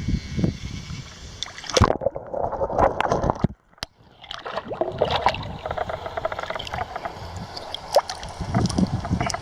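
Digging in a shallow creek bed: water sloshing and gurgling, with many sharp knocks and scrapes of stones and gravel. A brief drop-out about halfway through.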